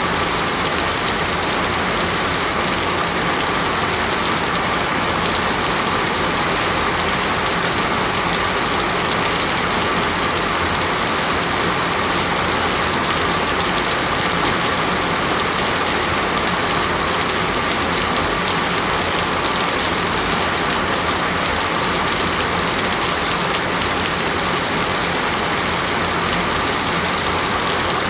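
Steady heavy rain falling and pattering on surfaces, an even, unbroken hiss.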